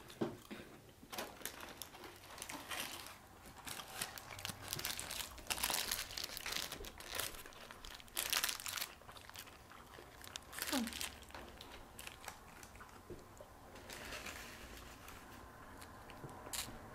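Paper sandwich wrappers crinkling and rustling in scattered bursts as the sandwiches are handled, mixed with crunchy bites and chewing of toasted bread.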